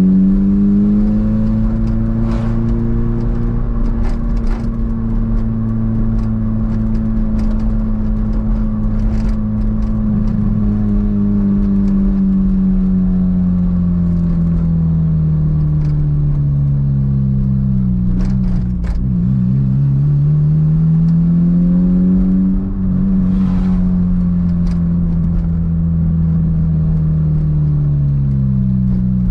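Toyota MR2's engine while driving, its pitch climbing as the car accelerates, holding, then sinking slowly as it eases off, twice over. A steady low road rumble runs beneath, with a few light rattles.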